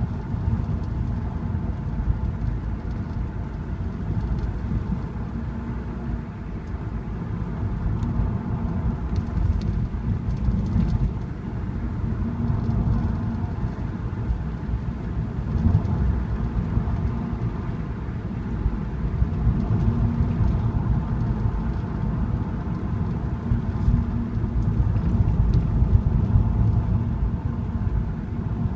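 Car driving, heard from inside: a steady low rumble of engine and tyre noise that rises and falls a little in level.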